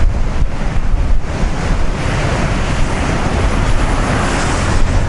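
Heavy Pacific storm surf crashing and washing over rocks below a cliff, under strong gusting wind buffeting the microphone with a low rumble. The surf hiss grows stronger about halfway through.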